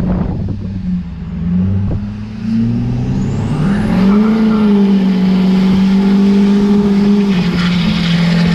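Turbocharged Ford Super Duty pickup accelerating, heard from inside the cab: the engine note climbs over the first few seconds, then holds steady under load. A thin high whine rises with it as the turbo spools.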